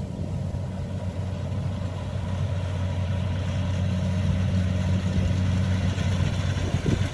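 Kubota DC-70 combine harvester's diesel engine running steadily with a deep even drone, growing gradually louder.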